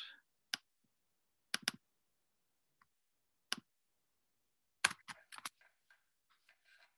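Scattered sharp computer clicks, including a quick double click about a second and a half in and a short run of clicks about five seconds in. After that, faint soft sounds from a film soundtrack that has just started playing.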